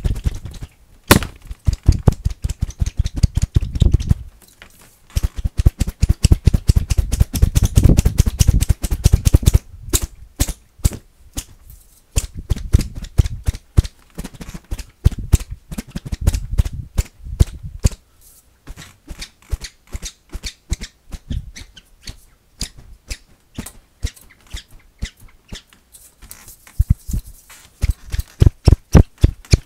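Long plastic strip from an Ikea armoire whipped again and again, giving many sharp cracks and slaps, several a second, in quick runs. The strokes thin out and get quieter for a while past the middle, then a loud run comes near the end.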